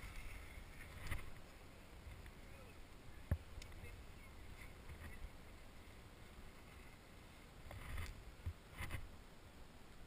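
Wind rumbling faintly on the microphone, with scattered clicks and rustles: a sharp click about three seconds in and louder rustling near the end.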